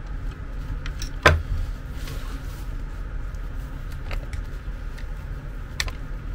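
Handling noise from a disassembled bed linear actuator: a few sharp clicks and knocks of its plastic gearbox housing, screwdriver and aluminium tube, the loudest about a second in, over a steady low hum.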